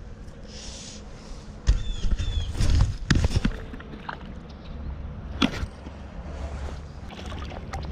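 A wading angler's handling noise: irregular knocks and rubs from a fly rod, reel and line, a cluster about two to three seconds in and a single sharp knock past the middle, over a low steady rumble.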